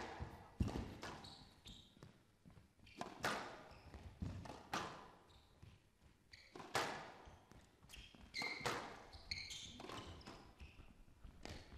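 Squash rally: the ball cracking off rackets and walls in sharp, irregular hits about a second apart, with short squeaks of players' court shoes on the wooden floor.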